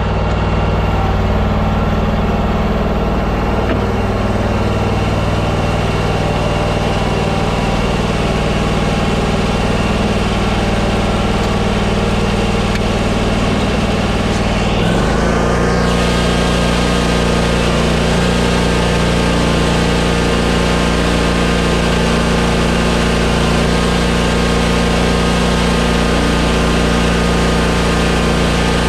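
Commercial zero-turn mower's air-cooled engine running steadily at low speed; about halfway through its speed rises quickly, and it holds steady at the higher speed.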